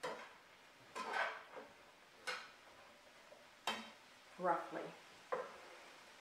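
A utensil scraping and stirring breadcrumb stuffing in a skillet, four short strokes, over a faint simmer on low heat. A woman says a word near the end.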